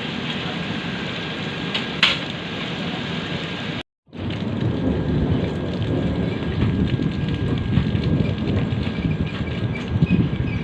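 A steady hiss with a single knock about two seconds in, then, after a sudden break, a passenger train running: a rumble with scattered rattling clicks.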